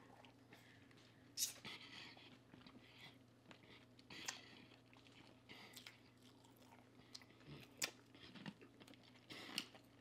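Quiet, close-miked chewing of breakfast food, with a few sharp crunches and mouth clicks scattered through.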